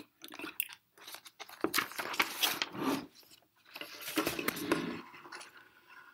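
Pages of a picture book being turned by hand: paper rustling and crinkling in two main swells, after a few light clicks at the start.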